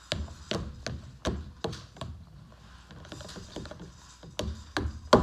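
Spoon knocking against the bowl while stirring thick slime that has just had borax added, a series of short knocks about two or three a second with a short pause partway through.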